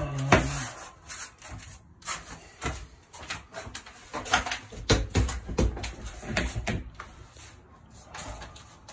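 Irregular clicks, knocks and low thuds of plastic shed panels being pressed and tapped so the wall slots into the roof's groove.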